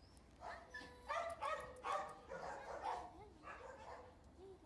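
Dogs barking in a run of short, high yaps, about half a second apart, fading out in the second half.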